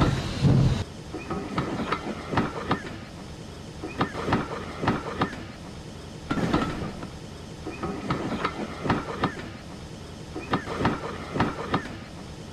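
Toy train trucks and coach rattling as they roll past behind a motorised toy engine: small clusters of sharp clicks about once a second over a faint steady background, after a louder rumble in the first second.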